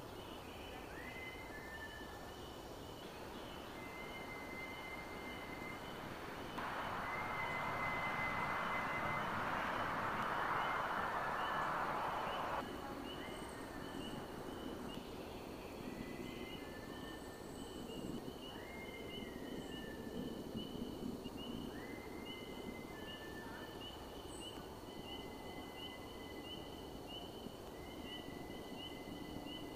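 Unidentified high, thin whistles, about a dozen of them, a few seconds apart. Each rises quickly and is then held steady for about a second. They play over a steady, rapid high chirping, and a loud rushing noise swells in from about six seconds in and cuts off suddenly near thirteen seconds.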